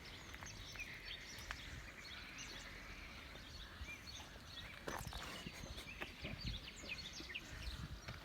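Several birds chirping and calling over faint outdoor background noise with a low rumble.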